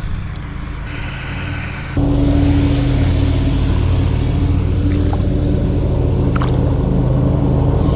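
Lawn mower engine running steadily, with a low even hum; it gets louder and picks up a hiss about two seconds in.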